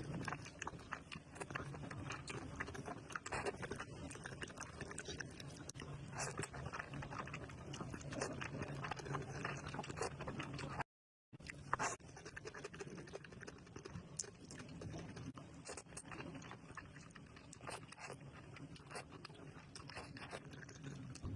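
Close-up mukbang eating sounds: wet chewing and mouth smacks, many short clicks in quick succession, broken by a moment of dead silence about eleven seconds in.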